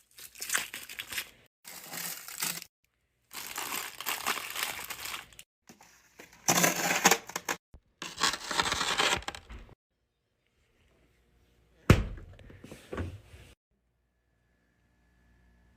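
Plastic packaging crinkling and rustling in several short stretches that start and stop abruptly, then a single sharp knock about twelve seconds in.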